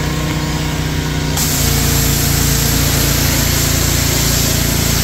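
Pressure washer running; about a second and a half in the spray starts, a loud steady hiss of water jetting from the wand onto artificial turf, with the machine's hum running on underneath.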